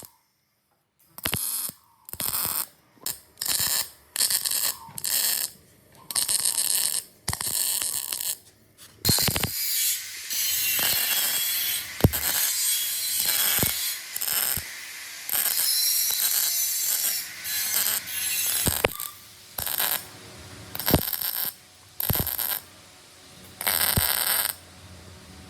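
Zip ties being pulled tight, each one a quick ratcheting zip, over and over with short pauses between; some pulls are short and a few run longer.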